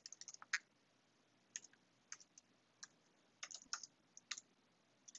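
Faint typing on a computer keyboard: scattered keystrokes, some in quick runs, as a name is typed into a text field.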